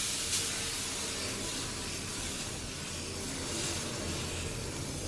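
Dosa batter sizzling with a steady hiss on a hot iron tawa as it is poured and spread out with a ladle.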